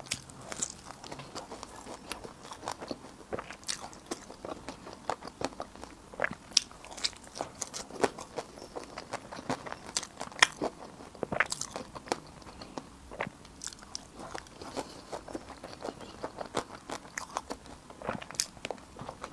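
A person eating close to the microphone, biting and chewing food with many sharp, irregular clicks, several a second.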